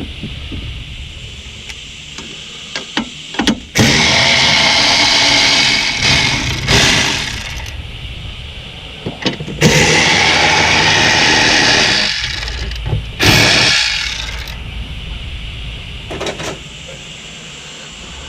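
Power tool running in four short bursts of one to two seconds, driving off the 10 mm nuts that hold the stereo amplifier, with light clicks and handling knocks between the bursts.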